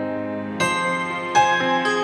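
Gentle solo piano music, a new chord or note struck roughly every half second to second and left to ring on.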